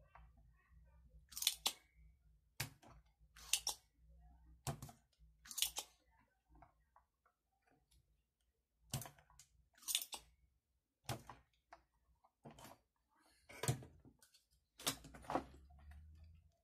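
Spring-loaded desoldering pump being cocked and fired again and again to suck solder out of a motherboard's through-holes: about a dozen sharp snaps and clicks, with a pause of about two seconds in the middle.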